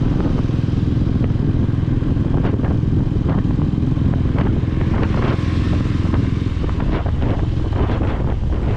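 Steady engine and road rumble of a moving vehicle, with scattered light knocks and rattles.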